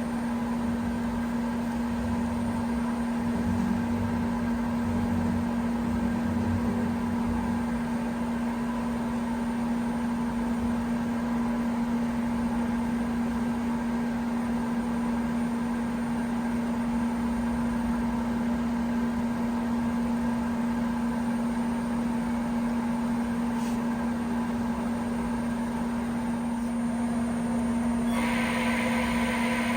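Citizen Cincom Swiss-type CNC lathe running: a steady machine hum with one strong low tone over a low rumble. Near the end a brighter, hissier layer joins in.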